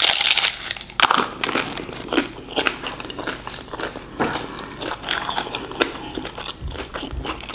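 A bite into a crunchy taco with a double layer of fried tortilla shells, a loud crackle at the start, then irregular crunchy chewing.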